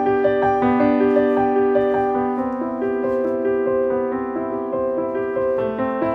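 Background piano music: a gentle melody of held notes moving step by step.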